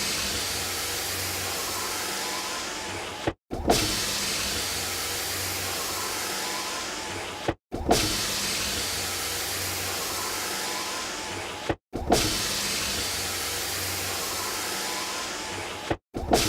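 Car power window motor running, its whir repeating in runs of about four seconds. Each run ends with a clunk, a brief silence, and another clunk as the motor starts again, four times in all.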